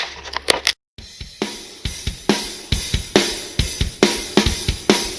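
Outro music: a rock drum beat with cymbals and hi-hat, about two hits a second, starting after a brief dropout about a second in and preceded by a few sharp clicks.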